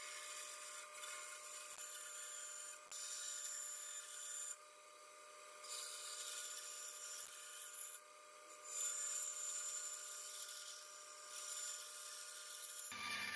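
Bandsaw trimming the overhanging plywood tiles off the edge of a patterned panel, faint, with a steady whine under the cutting noise. The cutting noise eases off briefly twice.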